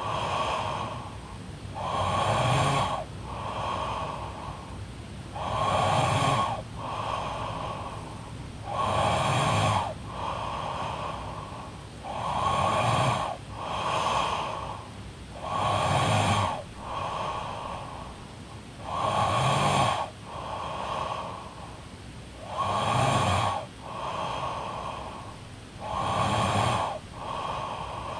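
A woman snoring in her sleep, slow and regular: a loud rasping snore followed by a softer breath, repeating about every three and a half seconds, about eight times.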